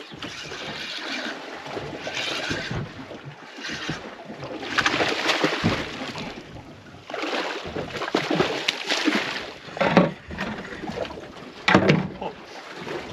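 Sea water splashing and sloshing against a small boat's hull in uneven surges, with two sharp knocks late on.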